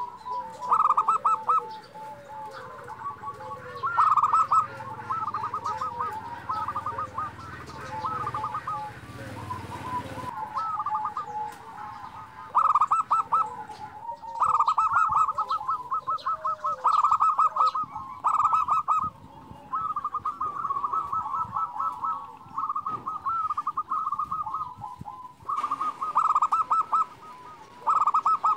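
Zebra dove (perkutut) singing: repeated phrases of rapid, stuttering cooing notes, one phrase after another with short pauses between.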